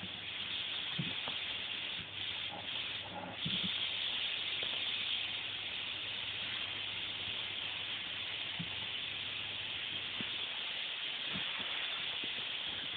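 Vacuum cleaner running steadily, a constant hiss with a low hum underneath that stops about ten seconds in.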